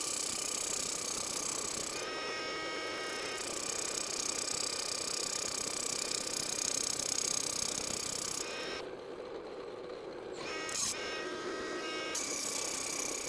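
Power tools running as a grinder takes metal off a steel winch shaft spinning in a drill press, a steady machine whine. The sound thins and dips twice, briefly about two seconds in and for a few seconds near the end.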